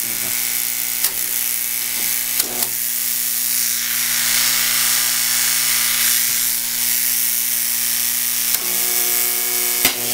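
Homemade AC electromagnet, built from a large transformer, and a high-voltage arc transformer buzzing loudly and steadily with mains hum. A few faint clicks sound about one and two and a half seconds in.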